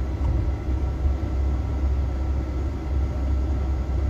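A steady, loud low rumble with a few faint steady tones above it.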